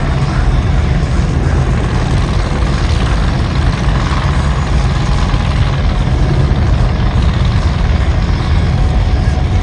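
Heavy engines running steadily with a deep low rumble.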